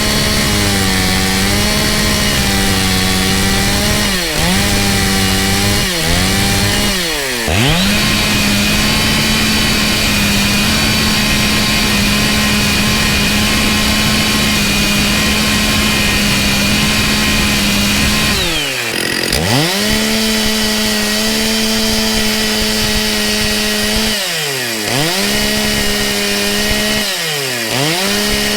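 Old 1990s Stihl chainsaw running at high revs while cutting firewood, one steady high engine note. Several times the revs drop briefly and climb straight back.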